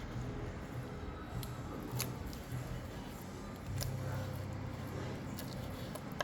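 Metal barbecue tongs clicking a few separate times over a steady faint hiss from the barbecue.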